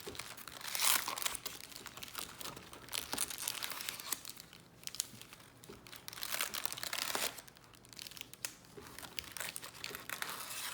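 Plastic card-box wrapping and trading-card pack wrappers being crinkled and torn open by hand, in irregular bursts of rustling, loudest about a second in and again around the middle.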